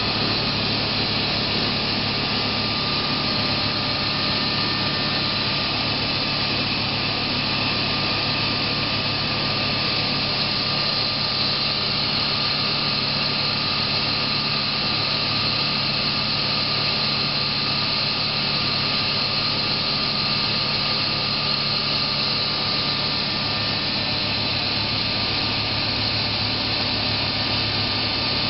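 Muller Martini 3601 book saw running steadily: an even mechanical noise with a low hum and a thin high tone that holds unchanged throughout.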